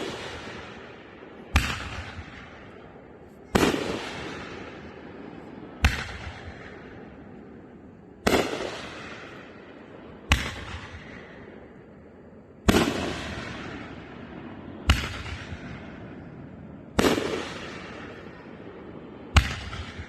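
Consumer fireworks cake firing aerial shells: a sharp bang about every two seconds, each trailing off into a fading rumble, around nine in a row.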